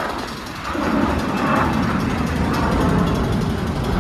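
Airport apron noise: a steady mechanical roar from aircraft and ground service vehicles, growing louder about a second in.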